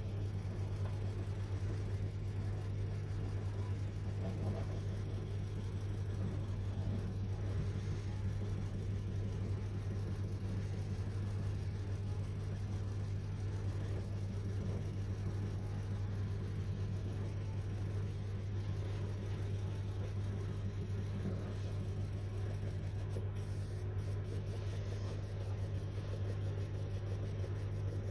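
Small single-cylinder model steam engine running on low-pressure compressed air, under 3 psi, giving a steady low hum with a faint whir that holds constant throughout.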